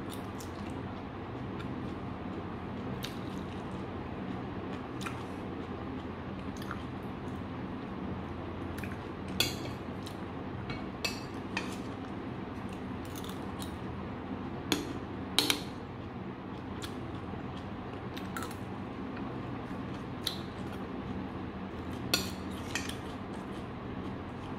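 Metal spoon clinking and scraping against a stainless steel bowl while eating, in scattered short clinks, the loudest about nine and fifteen seconds in, over a steady low background hum.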